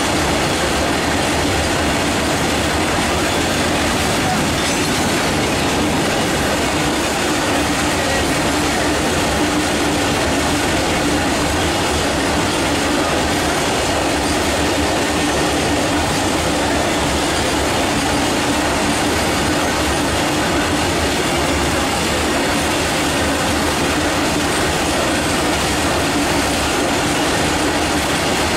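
Long freight train of open steel box wagons rolling past: a loud, steady rumble of wheels on rails, with a faint steady tone running through it.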